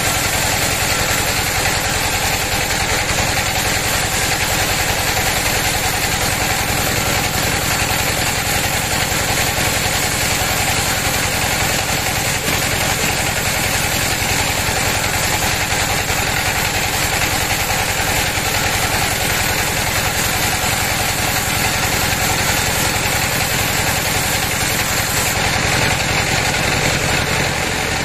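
Band sawmill running steadily as its blade rips lengthwise through a large teak log, a loud, even machine drone.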